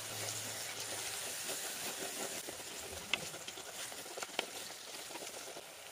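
Chopped tomato, onion and ginger-garlic paste sizzling as they are sautéed in coconut oil in a clay pot, a steady frying hiss. Two or three short sharp clicks sound in the second half.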